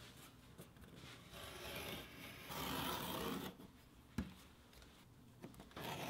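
A craft knife drawn through vegetable-tanned leather along a steel ruler, making long scraping cuts: one rises to its loudest about two and a half seconds in and lasts about a second. A sharp tick comes about four seconds in, and another cut starts near the end.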